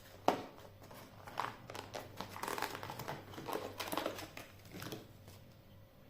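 Crinkling and rustling of a thin sheet material being handled, in irregular bursts, with a sharp click shortly after the start.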